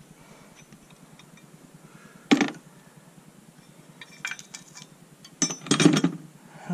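Loose metal bolts and hand tools clinking as they are handled and set down: one sharp clink about two seconds in, a few light ticks around four seconds, and a louder cluster of clinks near the end.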